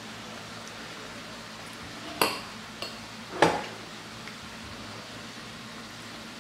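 Metal cutlery clinking sharply against a dish twice, about a second apart, with a fainter click between, over a steady faint hiss.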